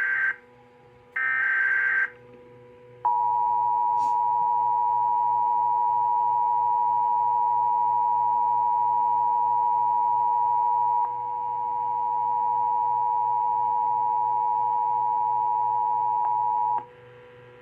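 Emergency Alert System tones: two short warbling digital data bursts of the SAME header, then the steady two-tone attention signal sounding continuously for about fourteen seconds before cutting off near the end, over a faint steady hum.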